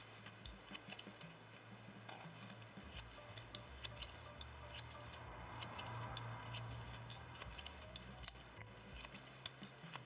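Faint, irregular small clicks and ticks of a plastic tatting shuttle and fine thread being handled while double stitches are tatted, a few clicks a second.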